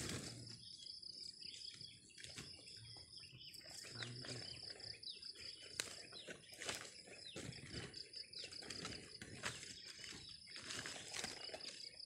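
Steady high chirring of crickets, with irregular knocks and rustles as cut sugarcane stalks are handled and sorted by hand. A few short bird chirps come in the middle, and a sharp knock about six seconds in.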